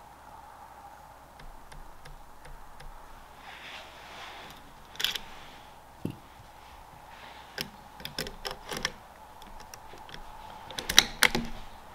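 Scattered small clicks and taps of a .22 rifle's box magazine being handled, with sharper clusters of clicks about five seconds in and again near the end.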